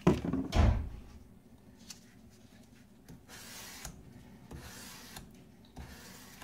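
600-grit sandpaper on a sanding block rubbed along the steel bevel of a drawknife, heard as about three separate sanding strokes in the second half. Two knocks in the first second as the block is handled against the blade and board.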